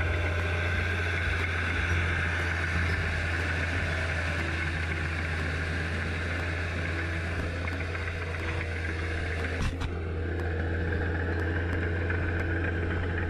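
Ford tractor's diesel engine running steadily under load as it drags a levelling implement through the mud of a flooded paddy field. A short sharp knock cuts in about ten seconds in.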